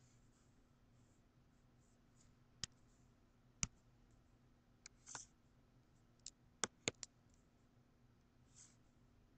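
Sparse, sharp clicks of a computer pointing device, about seven of them, several in quick succession a little past the middle, with two brief soft scratchy sounds, over a faint low hum.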